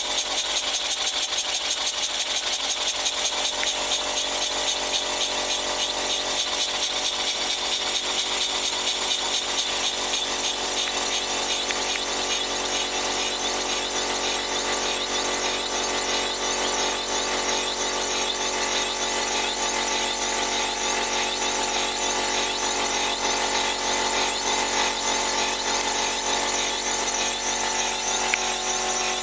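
Taylor twin-cylinder steam launch engine with Stephenson's link reversing gear, running fast on compressed air with a rapid, steady beat.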